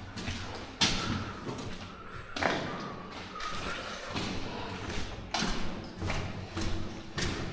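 A few dull thuds and knocks with some echo, spaced a second or two apart.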